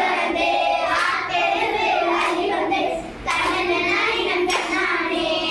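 Group of young girls singing a Tamil kummi folk song together, with sharp hand claps in time, about one a second, as they dance in a circle.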